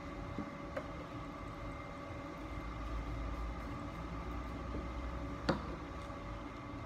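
Steady mechanical hum in the room, several held tones over a low rumble that swells a couple of seconds in. Light handling noises from paper strips and glue sticks on the table, with a small click about a second in and one sharper tap about five and a half seconds in.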